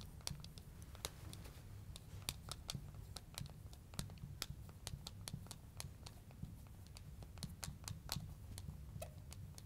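Faint irregular taps and short scratchy strokes of a marker writing on a glass lightboard.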